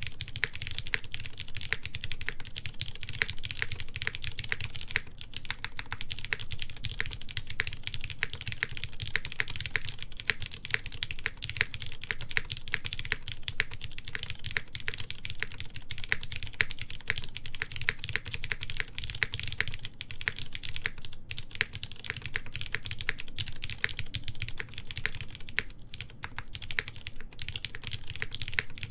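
Continuous fast typing on a mechanical keyboard with lightly lubed linear Cherry MX Black switches, a full forged carbon fiber plate and GMK keycaps: a dense, steady stream of keystroke clacks.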